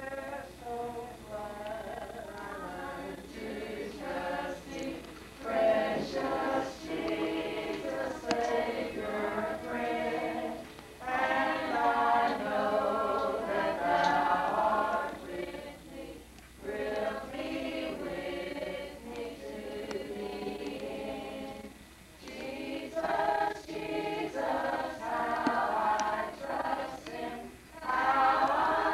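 A group of people singing a hymn together without accompaniment, in long phrases with short pauses between them.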